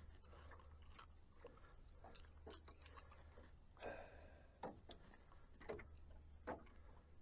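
Near silence broken by faint scattered clicks and light knocks, a few louder ones in the second half, from metal fishing pliers being worked on a small catfish's swallowed hook.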